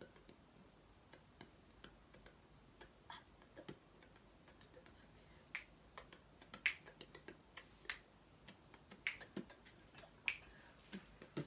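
Faint, irregular sharp clicks and ticks in a quiet room, a few at a time, growing more frequent and a little louder from about halfway through.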